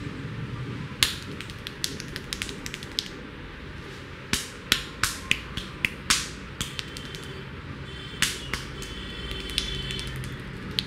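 Barber's hands slapping, tapping and snapping on a client's head during a vigorous Indian-style head massage. A string of sharp, separate claps: a loud one about a second in, a quick run of lighter clicks after it, then a burst of louder slaps around the middle and a few more later.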